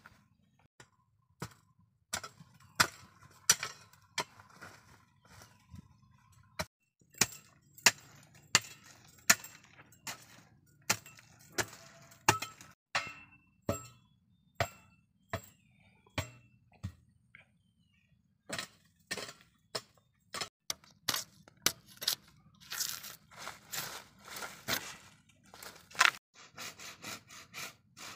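Sharp chopping blows of a hand tool on wood, coming irregularly about once a second with short pauses. Near the end a hand saw starts cutting bamboo with quick, even strokes.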